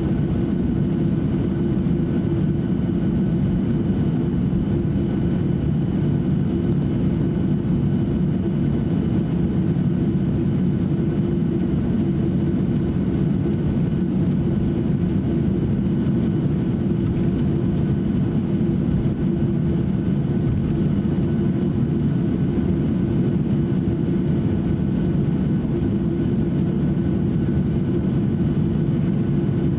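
Cabin noise inside a Boeing 737-800 taxiing, its CFM56-7B turbofans running steadily at taxi power: a low, even rumble with a steady hum and a faint higher whine above it.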